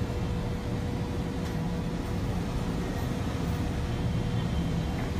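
Steady low background rumble with a faint, even hum running through it; no distinct events.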